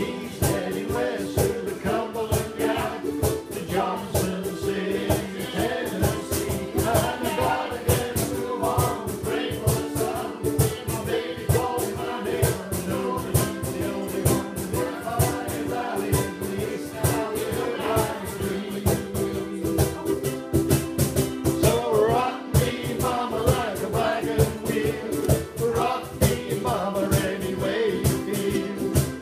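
An amateur ukulele group strumming together in a steady rhythm, with an accordion holding chords underneath and the players singing along as a group.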